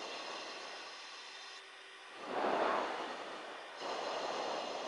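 Steady rushing noise over an aircraft radio intercom, with two louder surges of hiss, one about two seconds in and one near the end that cuts off abruptly.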